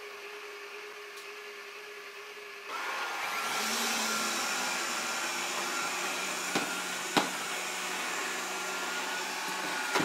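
Proscenic 820S robot vacuum cleaner starting up: a quieter steady hum at first, then about three seconds in its suction fan spins up into a louder, steady high whine as it drives across a hardwood floor. Two sharp clicks come midway through.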